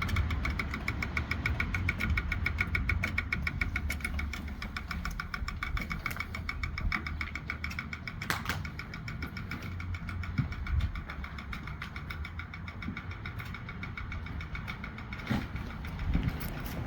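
An idling vehicle engine with a fast, even ticking over a steady low hum. The ticking is the noise in question, but its cause is not identified.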